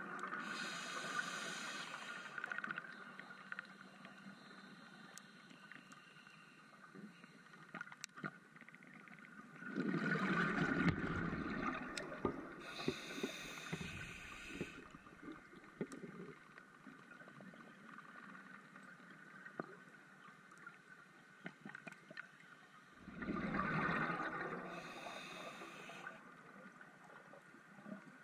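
Scuba regulator breathing underwater, in slow cycles about every twelve seconds: a gush of exhaled bubbles, then a short hiss as the regulator delivers air. Faint crackling ticks fill the long pauses between breaths.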